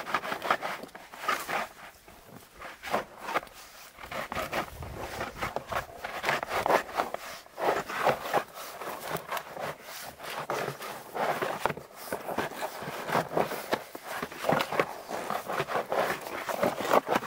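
Knife blade scraping along the inner face of a sheet of winter birch bark in repeated, irregular strokes.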